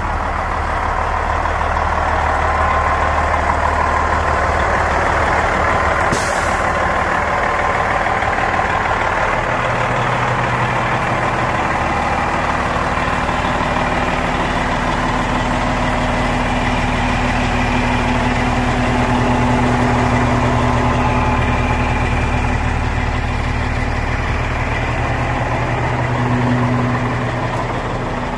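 International 9100 grain truck's diesel engine idling steadily, with a brief high hiss about six seconds in.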